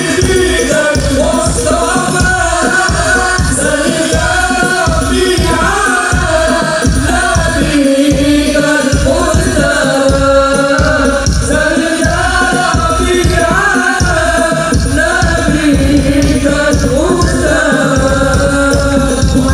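Live sholawat, a devotional song in praise of the Prophet, sung by a woman in long, bending melodic lines over a loud, quick, steady drum beat.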